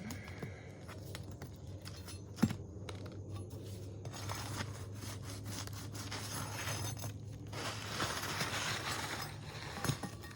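Scraping and rubbing against roof shingles, in long scratchy strokes through the middle of the stretch, with one sharp knock a couple of seconds in and a smaller one near the end.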